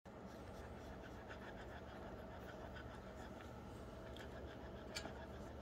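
Faint, irregular little clicks and smacks from newborn French bulldog puppies suckling, over a steady low room hum. A sharper metallic click about five seconds in as the wire crate's door latch is touched.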